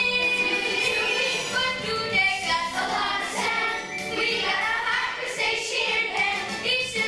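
A children's chorus singing a show song with musical accompaniment.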